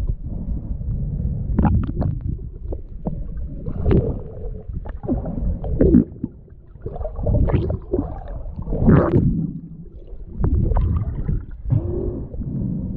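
Muffled underwater sound picked up by a GoPro in its waterproof housing: water moving and gurgling around the camera in low, irregular surges, with scattered sharp clicks.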